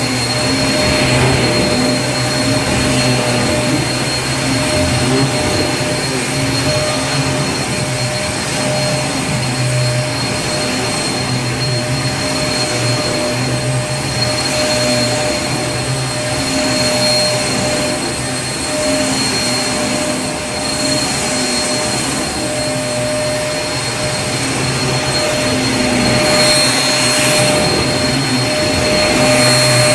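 Vacuum cleaner running steadily: a continuous whooshing rush of air over a steady motor hum.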